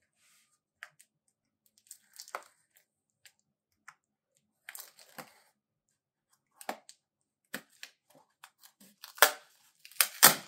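Clear packing tape on a cardboard box being slit with a small box cutter and pulled loose: scattered scrapes and clicks of blade and cardboard, with the loudest tape tearing about nine and ten seconds in.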